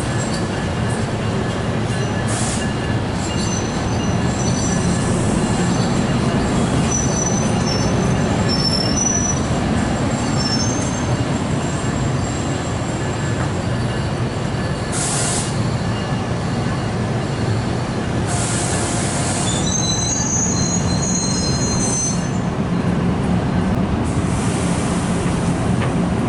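Train rolling along the rails with a steady low rumble, its wheels squealing thinly and high-pitched on and off, twice in longer stretches.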